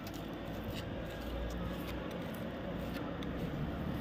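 A motor vehicle approaching along the road, its engine's low rumble growing steadily louder, with a few soft footsteps on the road.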